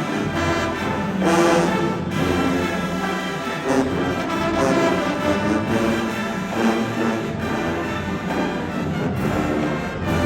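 High school marching band brass playing held chords that swell and change every second or two.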